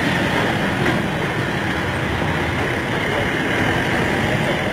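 Steady noise of road traffic, with heavy vehicles running close by.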